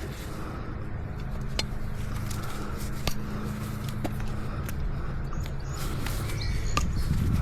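Hoof nippers snipping a miniature horse's overgrown hoof wall: a few sharp, separate clicks over a steady low hum.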